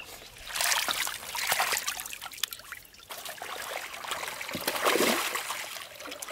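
Water splashing and trickling in irregular surges in a mud fish pond.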